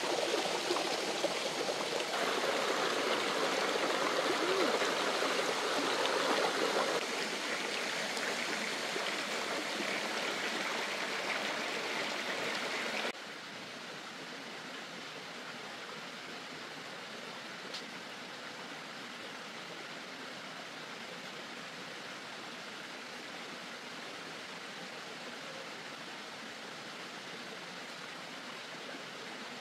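Steady rush of running water that drops abruptly to a quieter, even rush about 13 seconds in, with a single faint click a few seconds later.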